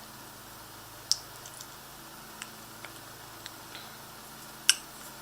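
Light clicks and taps from an OTF knife being handled, with two sharper clicks, one about a second in and one near the end.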